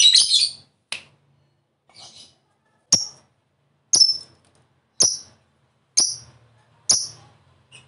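Lovebird calling in short, sharp, high-pitched chirps, about one a second, after a louder, rougher call at the start.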